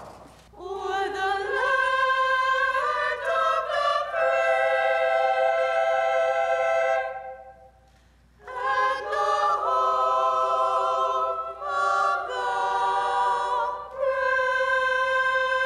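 A high voice singing unaccompanied in an operatic style: long held notes with vibrato and a pause for breath about halfway through.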